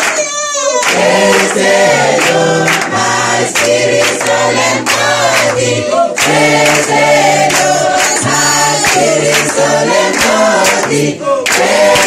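Congregation singing a gospel worship song in chorus, with hand clapping in time and a low bass line stepping between held notes.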